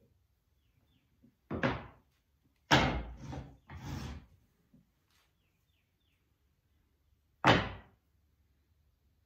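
Wooden boards knocked and set down on a wooden workbench: a thud about a second and a half in, two more close together around three to four seconds, and a sharp one near the end.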